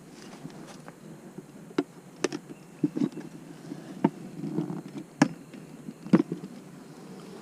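Honey bees humming around an opened hive, with a series of sharp knocks and clicks from the wooden hive parts being opened and handled.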